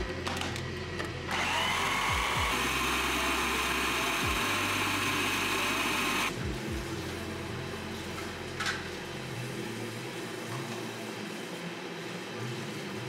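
Food processor motor puréeing a wet tomato mixture. Its whine climbs in pitch as it spins up about a second in, runs steadily for about five seconds, then cuts off.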